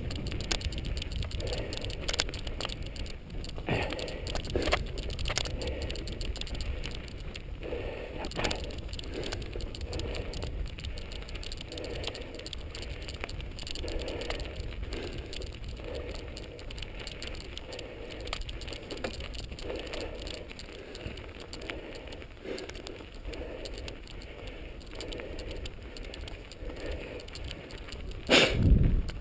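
Mountain bike rattling as it rolls over a dirt single-track, with scattered clicks and a steady low rumble. A louder jolt of noise comes near the end.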